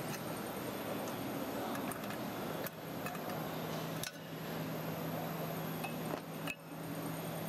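Stainless-steel parts of a small laboratory granulator (the perforated sieve drum and a steel rod) clinking and knocking as they are handled. There are a few separate sharp metallic clicks, the clearest about four seconds in and again near the end, over steady background noise.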